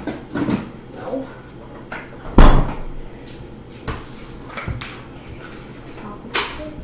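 Kitchen cupboard door knocking shut about two and a half seconds in, with lighter knocks and clicks around it as things are moved about.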